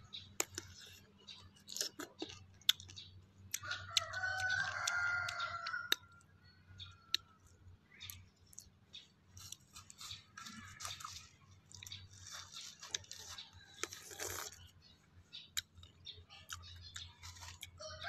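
Close-up crunching and chewing of crisp fruit, many short clicky bites. About four seconds in, a rooster crows once, a long call lasting a couple of seconds and louder than the chewing.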